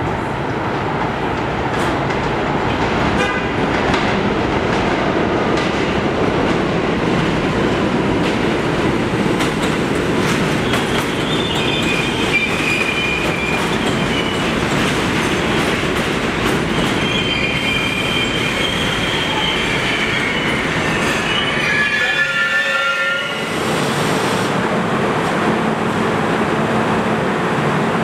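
R32 subway train pulling into an elevated station: steady running noise with wheels clattering over the rail joints, then high wheel and brake squeal as it slows. The squeal steps down in pitch as the train stops a little over twenty seconds in, leaving a steady hum from the standing cars.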